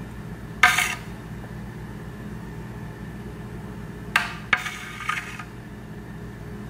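Metal spoon clinking against a mixing bowl while scooping gelatin mixture into candy molds: one ringing clink about half a second in, then a few more clinks and scrapes between about four and five and a half seconds, over a steady low hum.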